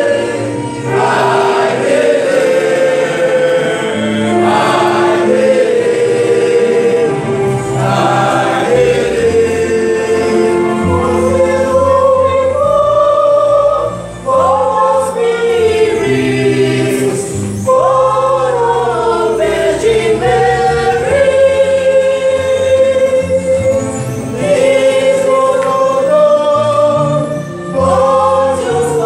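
College choir singing a church song in parts, many voices together.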